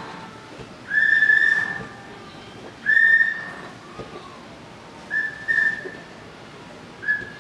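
A person whistling about five short notes, all at the same high pitch, each held for under a second with gaps between.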